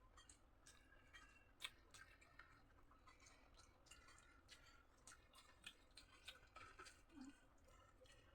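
A person chewing food close to the microphone, with quiet, irregular clicks and small crunches several times a second.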